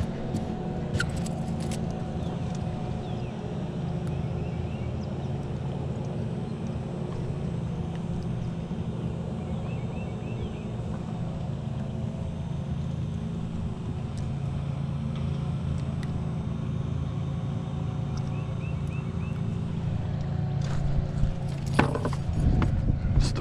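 Boat motor idling, a steady low hum that holds an even level throughout.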